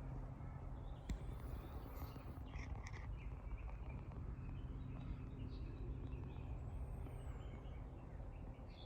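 Steady background noise with a low, even hum, and a few faint bird chirps about three seconds in.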